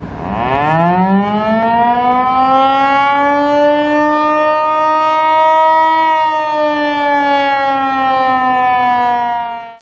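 A siren wailing in one long cycle: its pitch climbs over about two seconds, holds high, then slowly sinks before it cuts off suddenly.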